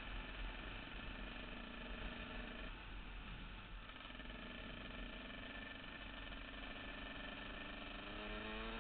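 2000 Yamaha YZ125's two-stroke single-cylinder engine running at light throttle while cruising, with a constant low rumble underneath. The engine eases off briefly about three seconds in, then revs up with rising pitch near the end.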